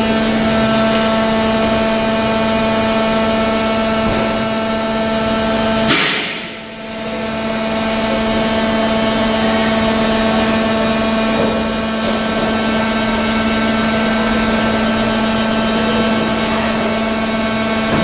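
Large 2200-ton injection moulding machine running, a steady machine hum made of several constant tones. About six seconds in comes a sudden short hiss, and the hum dips for about a second before settling back.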